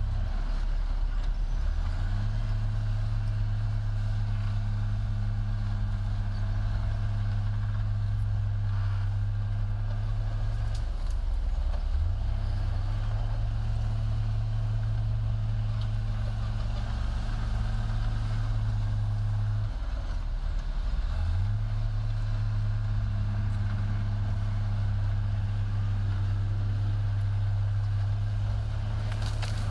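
Diesel engine of heavy earthmoving machinery running steadily, dropping off briefly and picking up again about every ten seconds as the machine works through its load cycles.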